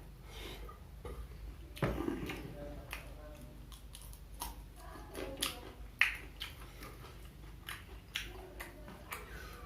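Close-up chewing and biting of fried snacks (gorengan): scattered short mouth clicks and crunches, the sharpest about two seconds and six seconds in.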